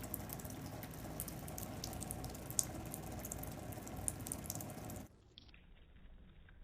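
Running tap water with many small splashing ticks as a cat laps at it. About five seconds in, the sound drops suddenly to a much fainter patter of lapping.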